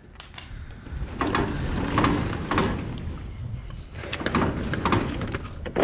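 Metal roll-up rear door of a box truck being pulled shut and its latch worked by hand: a series of metallic clanks, knocks and rattles.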